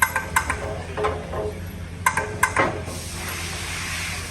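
Metal clinking against metal, about six sharp ringing clinks in the first two and a half seconds, over a low steady machine hum. A steady hiss starts about three seconds in.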